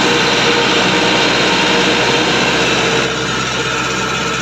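Kubota DC-108X rice combine harvester running, a loud, steady engine and machinery drone heard up close from the operator's seat, easing slightly about three seconds in.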